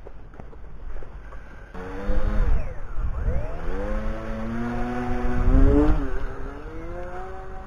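Twin small electric motors and propellers of a foam RC flying wing starting to whine about two seconds in at launch, their pitch dipping and climbing several times with throttle, peaking just before the end and then dropping. They are running on an old 3-cell battery that the flyer finds short of power, with wind rumbling on the microphone.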